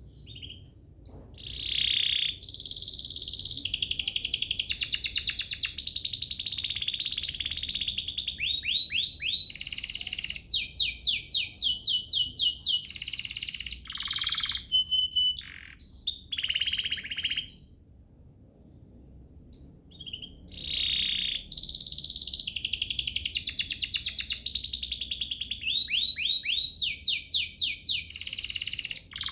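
Domestic canary singing long, continuous song: fast high trills and rapidly repeated notes, with runs of downward-sweeping notes. There are two long bouts, with a pause of about two seconds a little past the middle.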